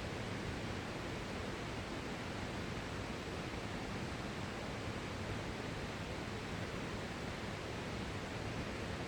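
Steady rush of a creek running high with snowmelt and rain, an even hiss with no breaks.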